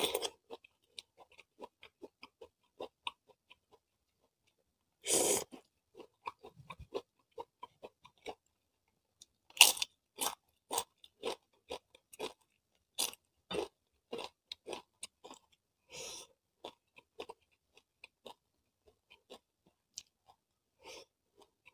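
Close-miked chewing and crunching: a bite into boiled corn on the cob, then fried cassava chips crunched, with many short wet chewing clicks between the louder crunches, thinning out near the end.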